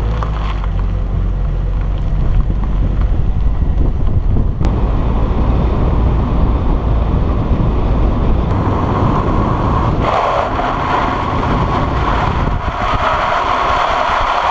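Nissan 200SX S13's turbocharged CA18DET four-cylinder engine running as the car drives, with wind buffeting the outside-mounted microphone. About ten seconds in, a high, wavering tyre squeal starts as the car slides through a corner.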